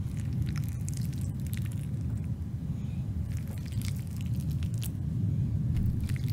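Low, steady rumbling drone with scattered soft crunching, squishing clicks over it.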